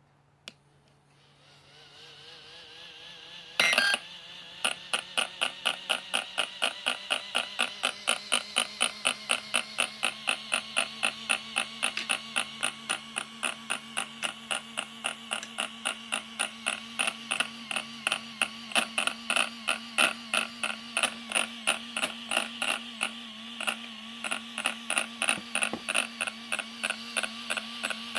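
Arrma Kraton RC truck's electronics powered on, with a steady hum and an even clicking about three times a second that starts a few seconds in after a loud burst. The clicking comes while the wheels and steering servo will not move, the fault that followed fitting a new servo.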